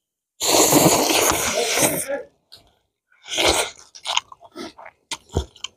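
Noodles slurped loudly for about a second and a half, followed by close-up chewing and mouth smacking with a few sharp clicks.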